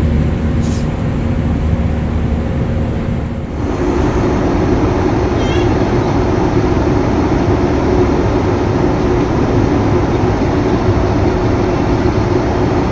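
Airbus A320 cabin noise in flight: a loud, steady rush of engine and air noise with a low hum. The hum shifts to a higher pitch about three and a half seconds in.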